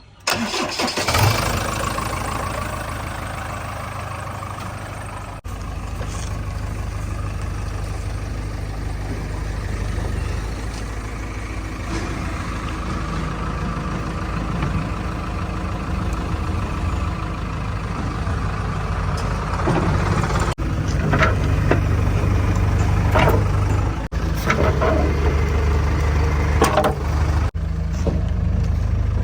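Diesel engine of a heavy machine (backhoe loader or tractor) starting up, then running steadily. It grows louder in the last third, with a few sharp knocks.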